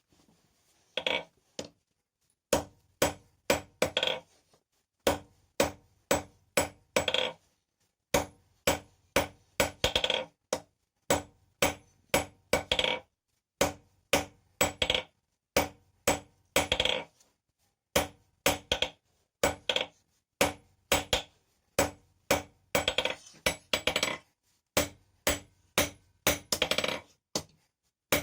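Hand hammer striking steel on an anvil in a steady forging rhythm, about two blows a second, each with a short metallic ring, with some quicker clusters of strikes.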